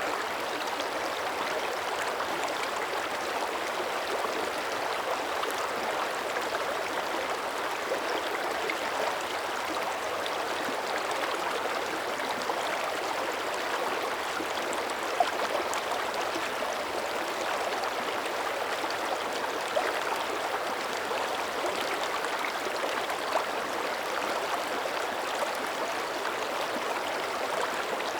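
Shallow mountain creek running steadily: an even rush and babble of water flowing over rocks, with a few faint drip-like ticks.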